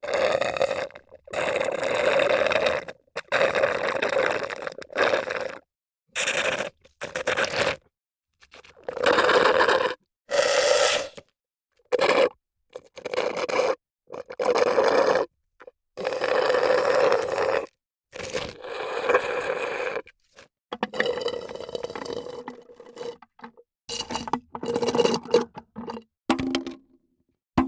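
A run of short drink sound effects, more than a dozen separate clips of about half a second to two seconds each, with brief silences between them.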